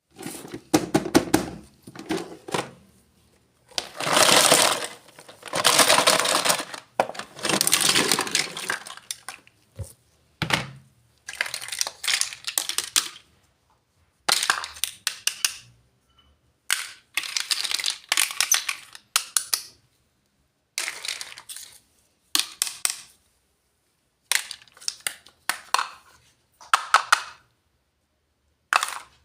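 Plastic packaging and small plastic doll-house furniture pieces being unboxed and handled: crinkling, crackling and clicking in short bursts, with dead silence between them.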